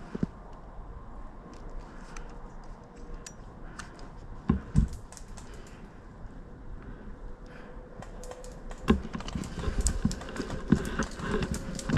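Footsteps on the forest floor with small clicks of gear, scattered at first and then coming quicker and heavier from about nine seconds in, as the player starts to move fast.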